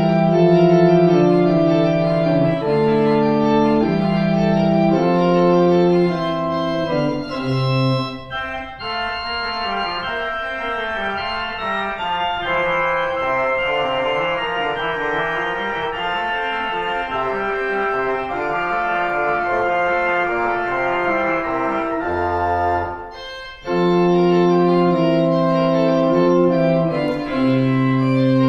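Organ music played in slow, held chords. About eight seconds in it thins to a lighter, higher passage; a few seconds before the end there is a brief break, and then full, deep chords return.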